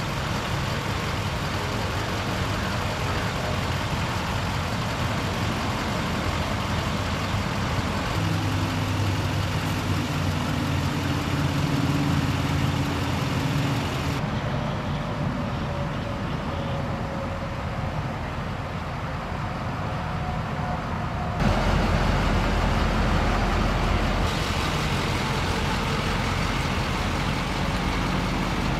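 The 6.6-litre Duramax V8 diesel of a 2005 GMC C5500 truck idling steadily, under a broad hiss. The sound changes abruptly in tone and level twice, about 14 and 21 seconds in.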